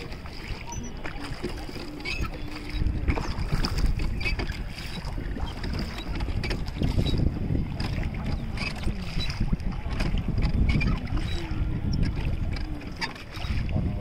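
Wooden rowboat being rowed on a lake: oar blades dipping and splashing in the water, over a steady wind rumble on the microphone.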